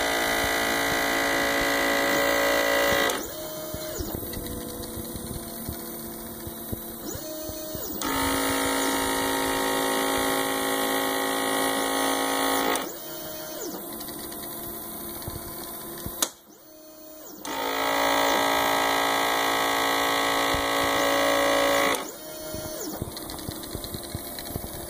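A 3D-printer-based pick-and-place machine at work. Its small vacuum pump hums steadily in three stretches of about four seconds each, switching off in between. In the gaps, the stepper motors whine as they speed up and slow down while moving the pick head. A sharp click comes about 16 seconds in.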